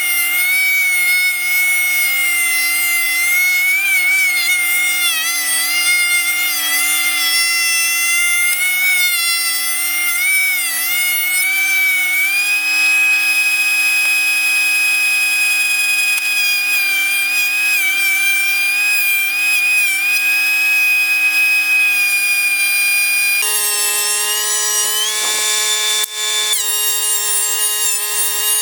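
DeWalt 13-inch thickness planer running with a high-pitched motor whine that wavers and dips as boards feed through, then steadies at a slightly higher pitch about twelve seconds in and shifts pitch again near the end.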